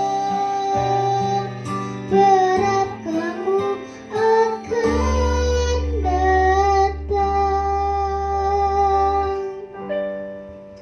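A singer holding long sung notes with vibrato over guitar accompaniment during vocal practice. Near the end the accompaniment stops and a last chord fades away.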